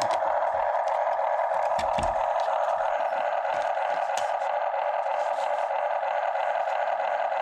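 Steady, even whir of the small electric drive motors and gearboxes of a 1:16 scale radio-control Cat 272D skid steer, with a few light knocks in the first two seconds.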